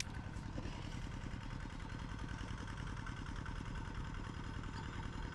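A small engine running steadily at idle, a low even throb.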